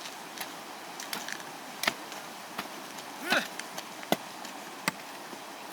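Several sharp knocks or strikes at irregular intervals, with a brief pitched sound that rises and falls about halfway through, over a steady background hiss.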